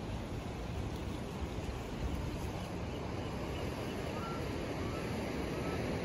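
Ocean surf washing steadily along the shore, with wind rumbling on the microphone.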